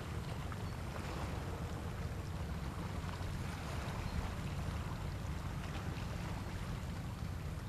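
Steady low rumble with a light hiss: outdoor background noise with no distinct event in it.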